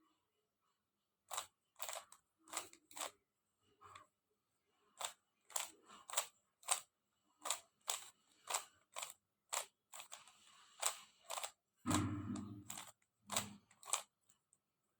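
Plastic 3x3 Rubik's cube clicking and clacking as its layers are turned by hand, about twenty quick, irregular turns. Around twelve seconds in there is a longer, louder rattle of the cube being handled.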